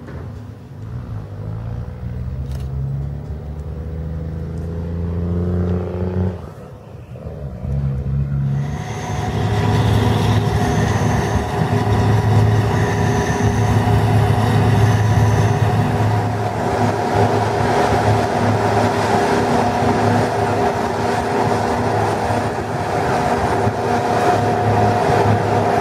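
Heavy diesel farm machinery: an engine rises in pitch over the first six seconds, dips briefly, then runs loud and steady with a whine from the machinery. A high beep sounds four times about ten to fifteen seconds in.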